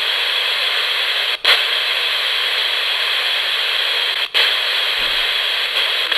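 Radio static from a ghost box radio sweeping back and forth between two stations with no antenna: a steady white-noise hiss, cut by a brief dropout and click about a second and a half in and again about four seconds in, as the scan jumps station.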